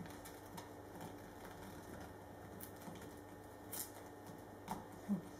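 Faint handling of woven carbon fibre cloth being pressed and smoothed by hand: a few light clicks and taps over a steady low hum.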